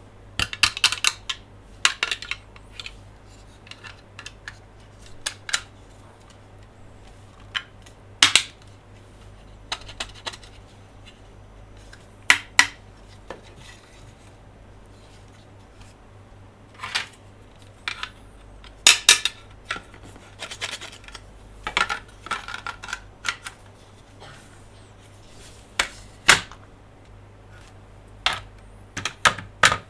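Close-up hand handling of plastic Monster Jam toy trucks and playset parts: irregular clicks, taps and small clatters, some coming in quick clusters, over a low steady hum.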